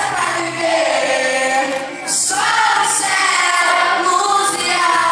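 A choir of school students singing together in long held notes, with a brief break about two seconds in.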